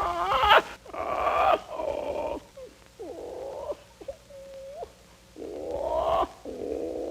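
Parrot squawking: a run of about seven short, harsh calls with short gaps between them, some bending up and down in pitch. A thinner, whistle-like note comes near the middle.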